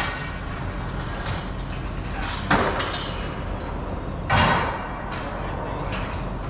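Steel scaffolding being dismantled: metal parts scraping and knocking, with two louder scrapes about two and a half and four and a half seconds in, over a steady hum.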